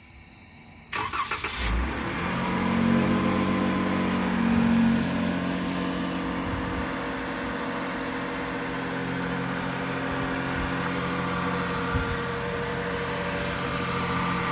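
Ram 1500 pickup's engine starting: the starter cranks briefly about a second in, the engine catches and revs up, then settles into a steady idle.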